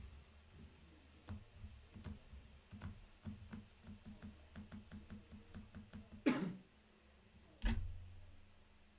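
Trading cards handled on a tabletop: a run of light clicking taps, about three a second, then two louder knocks near the end.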